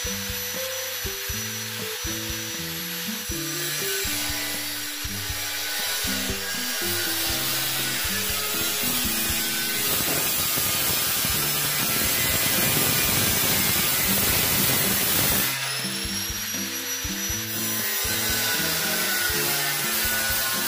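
Handheld angle grinder with a cut-off disc cutting through a galvanized steel drywall stud, a steady harsh grinding that builds a few seconds in and is loudest through the middle, over background music.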